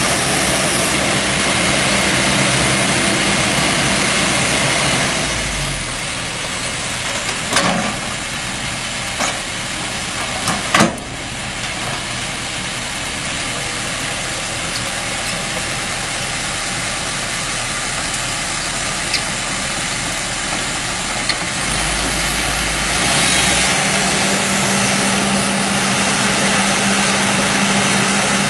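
Excavator diesel engine running steadily, working harder with a stronger hum in the first five seconds and again near the end. A couple of sharp knocks sound about 8 and 11 seconds in.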